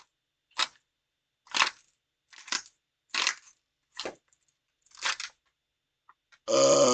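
A series of short, noisy gulps, about one a second, as air is swallowed from an empty bottle. Near the end a loud burp begins, much louder than the gulps.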